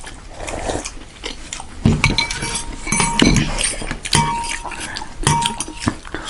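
Close-miked eating of momo and thukpa noodle soup: four short slurping and chewing noises, with utensils clinking and ringing against the bowl.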